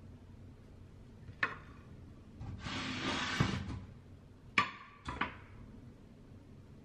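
Kitchen work sounds: a sharp knock, then a rushing noise lasting just over a second, then two more knocks close together, like cupboard doors and kitchenware being handled.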